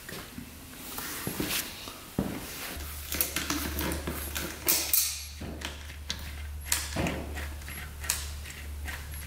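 Scattered clicks, taps and knocks of hand tools and metal parts being handled. A steady low hum comes in about three seconds in.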